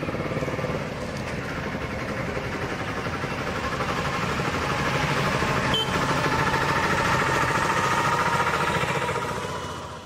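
Royal Enfield Bullet's single-cylinder engine and exhaust running with a quick, steady thumping beat. It grows louder over the first half and fades out at the very end.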